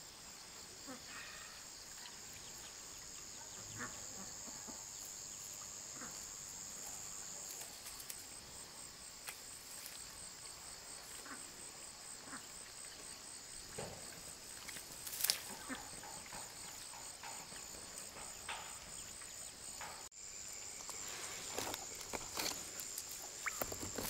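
Steady high-pitched insect chorus, with scattered light knocks and rustles of handling. The chorus briefly drops out about twenty seconds in and resumes slightly changed.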